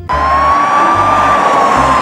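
Police car siren wailing, a single slow glide that rises a little in pitch and then falls, over a hiss of noise.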